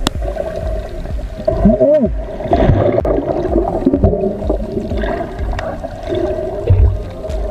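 Muffled underwater noise from a camera held under water: water moving and gurgling around it, with a brief tone that rises and falls about two seconds in.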